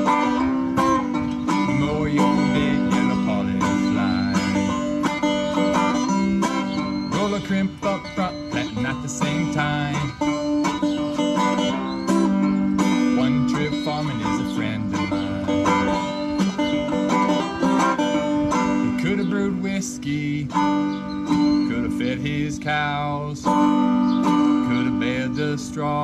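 Instrumental passage of a country-style song: quickly plucked banjo and acoustic guitar over a steady bass.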